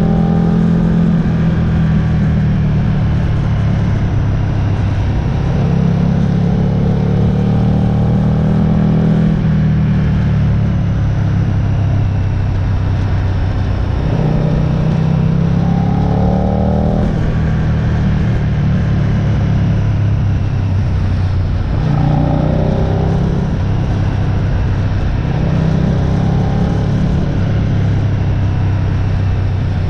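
Aprilia RSV R motorcycle engine pulling hard, its revs rising in repeated spells as it accelerates through the gears.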